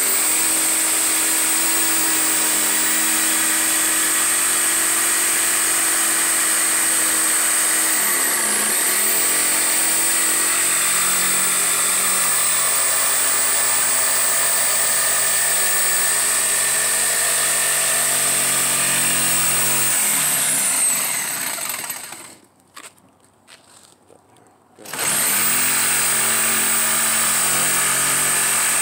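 Corded Ridgid jigsaw cutting through a thin plywood sheet, its motor and reciprocating blade running steadily, with the pitch dipping briefly twice. About three quarters of the way through it stops for a couple of seconds, then spins back up and cuts on.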